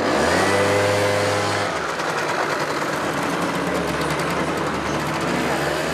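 Motorbike engine running as it rides off, starting suddenly with a brief rising whine, its note changing about two seconds in, then running steadily.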